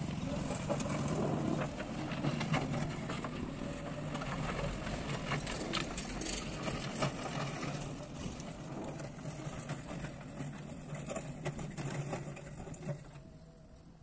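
Digger's diesel engine running steadily, with scraping and clattering of stones as the steel bucket works through loose gravel in the first half. The engine and clatter fade toward the end.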